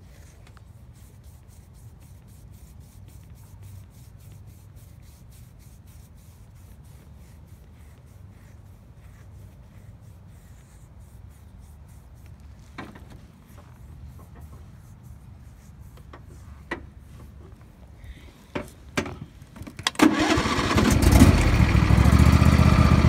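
John Deere LA120 riding lawn tractor's engine starting near the end, then running steadily and loudly. Before that there is only a faint low hum with a few light clicks.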